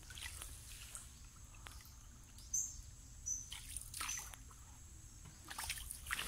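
Hand paddle of a small canal boat stroking through still water, with a few soft splashes and drips as the blade dips and lifts. A few short, high bird chirps around the middle.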